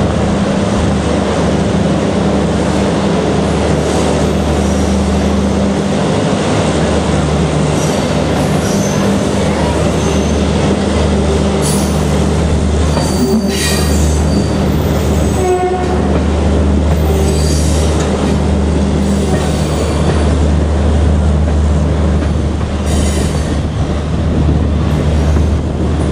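Steady low drone of an end-on-generation (EOG) power car's diesel generators, heard inside a closed coach as the train moves off, over the rumble of the wheels. Short high wheel squeals come through a few times around the middle.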